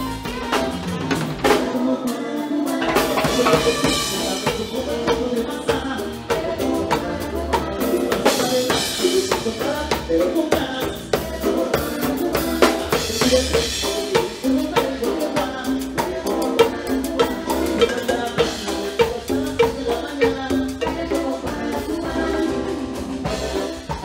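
Dance music with a steady drum-kit beat: kick, snare and rimshot under pitched instruments, with no lead vocal.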